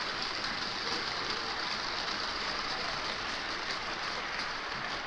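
Gauge 1 model freight train running along its metal track: the steady rushing hiss of its wheels rolling on the rails, with faint irregular clicks.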